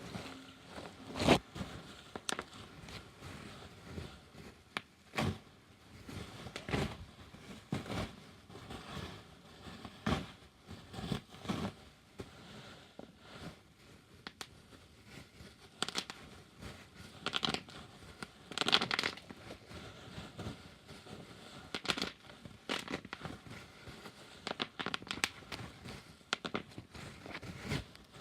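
Bubble wrap being squeezed and popped by hand: irregular single pops, a second or more apart, over crinkling plastic. The loudest pops come about a second in and again about two-thirds of the way through.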